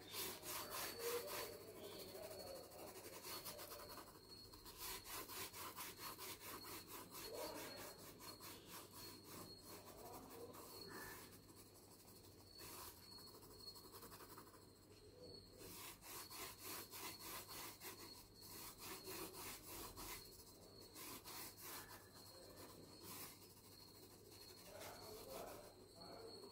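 Pencil lead scratching on paper in quick back-and-forth shading strokes, faint, in runs of many strokes broken by short pauses.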